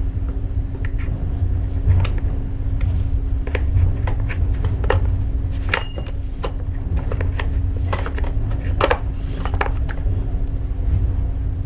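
Metal tools and small engine parts clinking and tapping in irregular, scattered clicks, over a steady low hum and rumble.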